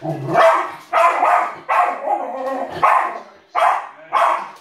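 West Highland white terrier barking repeatedly at the television, about six sharp barks in quick succession.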